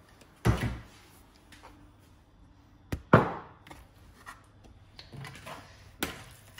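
A few separate knocks and clunks of kitchen cookware and utensils being handled, the loudest about half a second in and about three seconds in, with a fainter one near the end.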